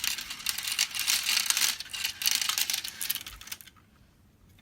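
Several marbles rattling and clattering down the tracks of a toy marble run, a dense run of small clicks that dies away about three and a half seconds in.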